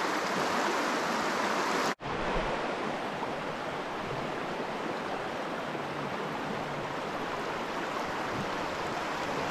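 Steady rush of a shallow, rocky mountain stream flowing and rippling over stones. The sound cuts out for an instant about two seconds in, then carries on a little softer.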